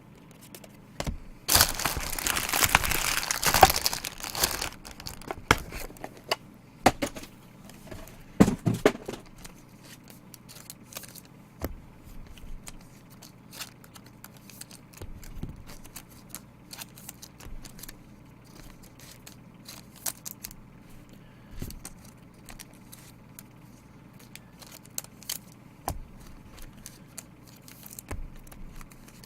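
Plastic wrapping or a foil card wrapper being torn open with a loud crinkling rip for about three seconds, a shorter crinkle a few seconds later, then scattered small clicks and rustles of cards and packaging being handled.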